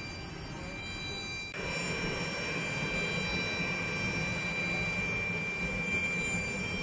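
Steady jet airliner noise heard inside the cabin: a low hum with a thin high whine. It gets abruptly louder about a second and a half in.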